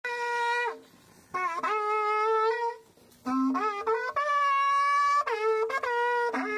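Berrante, the Brazilian drover's cattle horn, blown in a series of blasts with short pauses, the notes breaking between a low tone and a higher one. The longest blast, held about a second, comes just past the middle; it is a call to the herd.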